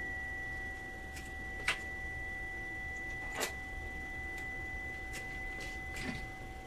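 A steady high whistle of two pitches from vintage amateur radio equipment, with a couple of light clicks.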